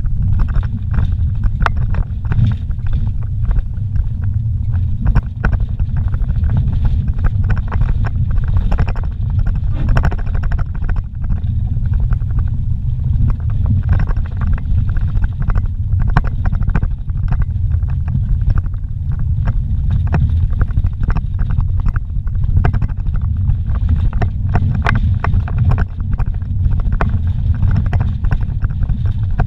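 Vehicle driving a rough dirt road, heard inside the cabin: a steady low rumble of engine and tyres with frequent irregular knocks and rattles from the bumpy surface.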